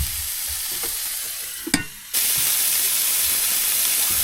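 Smash burgers sizzling in a frying pan, with a few low knocks. A sharp knock comes a little under two seconds in; after a brief dip the sizzling resumes louder and steadier.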